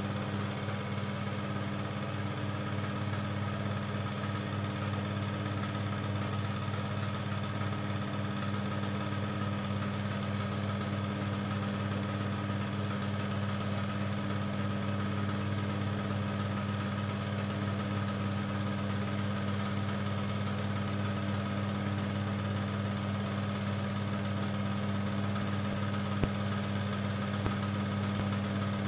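Super 8 film projector running: a steady mechanical hum with one faint click near the end.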